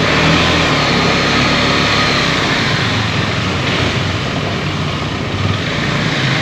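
Motorcycle running at low speed with a steady rushing noise as it rides across the steel loading ramp onto a ferry's vehicle deck.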